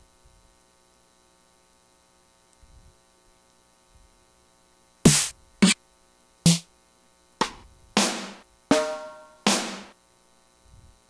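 Snare drum samples previewed one at a time while browsing FL Studio's FPC drum sample folder: seven separate single hits, each sounding a little different, starting about five seconds in and following each other about a second apart.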